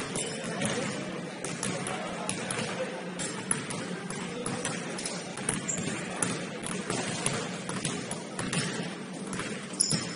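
Several basketballs bouncing on a hardwood gym floor, many irregular knocks at once, echoing in a large hall.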